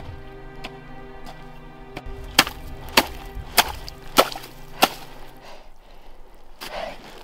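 A small hatchet chopping a hole in snow-covered lake ice: sharp strikes about every 0.6 s, the last five the loudest, with a softer crunch near the end. Background music with sustained tones runs under the strikes and stops about five and a half seconds in.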